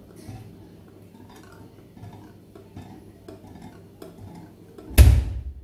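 A whisk stirring a milk, yeast and flour mixture in a glass bowl: faint, irregular clinks and scrapes against the glass. About five seconds in comes one loud knock, the loudest sound.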